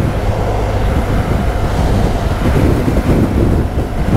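Wind rushing over the microphone of a moving motorcycle, with the BMW R1200 GS Adventure's boxer-twin engine running steadily underneath.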